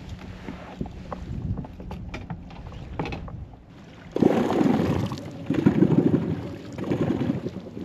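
Wind and water noise around a fishing kayak on choppy water: small knocks and splashes at first, then, about four seconds in, loud rough noise in three gusting surges.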